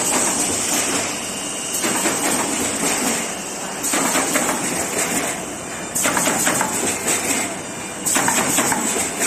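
Automatic corrugated-cardboard partition assembly machine running: a dense clatter of rapid clicks and knocks over a steady high hiss, louder and softer in turns every second or two.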